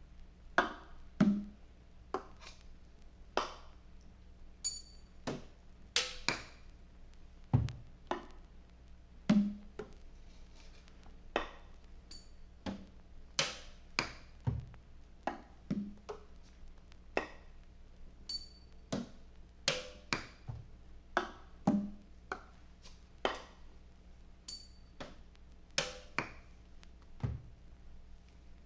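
Sparse, irregular percussion hits, roughly one or two a second, some with a brief high ring, over a faint steady low hum in an experimental band recording.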